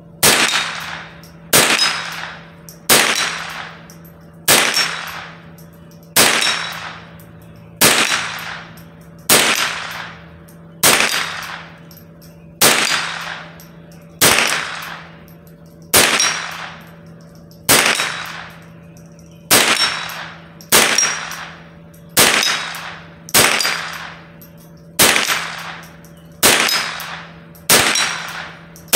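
Ruger 10/22 .22 LR semi-automatic carbine firing a steady string of about twenty shots, one roughly every second and a half, each with a short echoing tail. A faint ring of the steel target being hit follows many of the shots.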